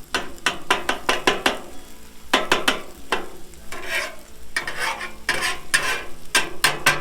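Metal spatulas chopping and scraping eggs and chicken on a hot steel griddle top: quick, uneven clacks in clusters over a steady frying sizzle.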